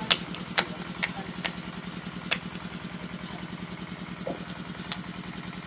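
An engine running steadily at idle, a low pulsing hum, with a few sharp clicks over it.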